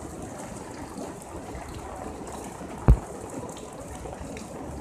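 Steady rain noise on a wet street, with one sharp thump about three seconds in.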